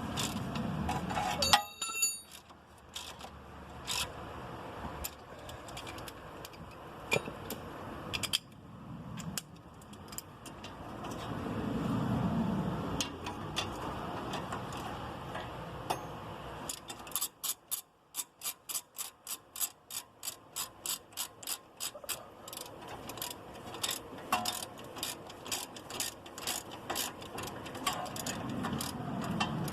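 Hand ratchet wrench clicking as the strut mount bolts are snugged up, in runs of quick clicks with pauses, the longest and most regular run in the second half.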